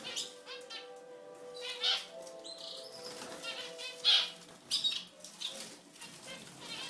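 Caged European goldfinch singing: short, rapid twittering phrases, the loudest about 2 and 4 seconds in.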